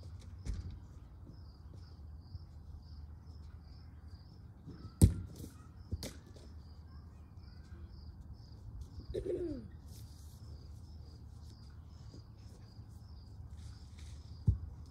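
A soccer ball kicked on a grass lawn: a sharp thud about five seconds in, another knock a second later, and a third near the end. Steady high chirping repeats about two or three times a second, with a short falling call around nine seconds.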